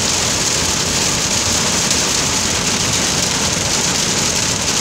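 Hard rain falling on a car, a steady loud hiss.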